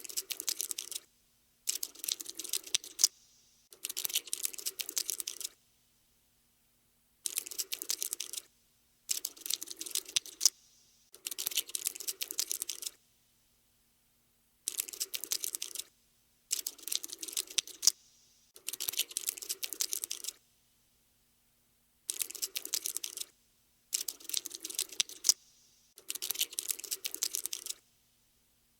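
Skittering cockroach scuttling sound effect: short runs of rapid dry clicks, each lasting one to two seconds, separated by brief silences, about a dozen runs in all.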